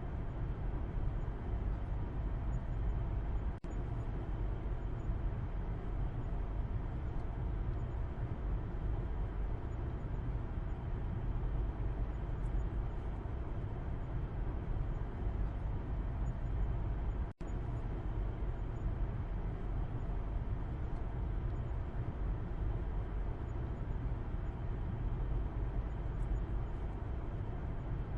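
Steady low road and engine rumble heard from the back seat inside a moving car, dropping out for an instant twice.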